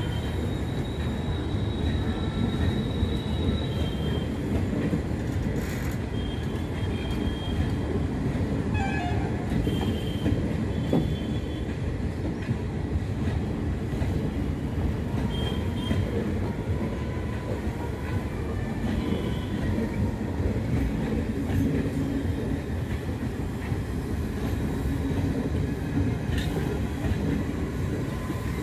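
Garib Rath express coaches rolling past at speed: a steady rumble and clatter of wheels on the rails, with brief high squeals now and then.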